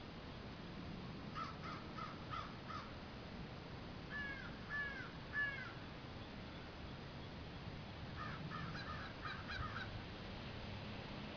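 A flock of crows cawing in bouts: a quick run of short caws, then three longer arching caws about four seconds in, then another quick run of caws near the end.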